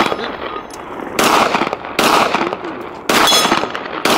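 Designated marksman rifle firing: three sharp shots about a second apart, each trailing off in an echo, and a fourth right at the end.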